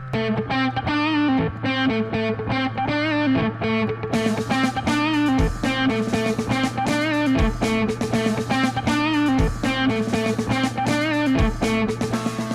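Background music led by an electric guitar, with a steady beat.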